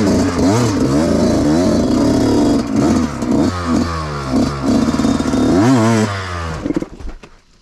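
Two-stroke Yamaha YZ125 dirt bike engine revved up and down over and over, the pitch rising and falling with each throttle blip, then the engine sound dies away about seven seconds in.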